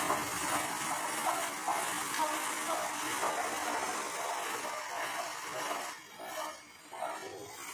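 Matchsticks standing in a row, flaring one after another as the fire runs along the line: a hissing crackle of match heads catching and burning. It thins out and turns patchier about six seconds in.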